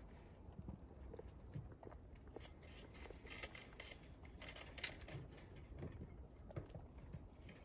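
Faint rustling and small soft clicks from white rabbits shifting and nuzzling on the wire floor of a hutch, over a low steady rumble.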